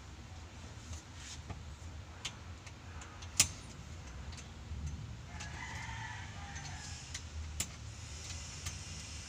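Light metallic clicks and taps from steel steering-column parts being handled and fitted by hand, with one sharper knock about three and a half seconds in, over a steady low background rumble.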